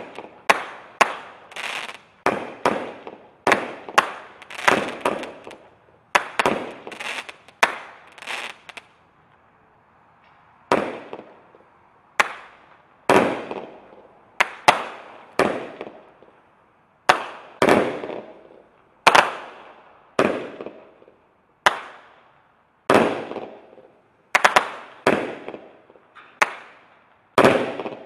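Multi-shot consumer fireworks cake firing: shot after shot of sharp bangs, each fading away quickly. The shots come in quick succession at first, pause briefly about ten seconds in, then go on at roughly one a second.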